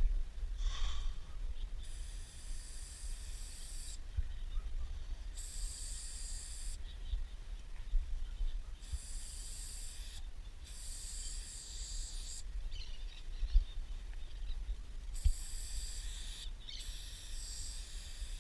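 Aerosol spray paint can hissing in six separate bursts of one to two seconds each, with short pauses between, over a low steady rumble.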